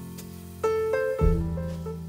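Live jazz trio music led by grand piano: a line of single melody notes over deep sustained low notes, with a new low note struck about a second in.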